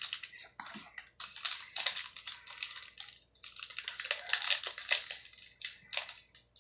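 Foil trading-card pack wrapper crinkling as it is handled in the hands, in irregular bursts of crisp crackling.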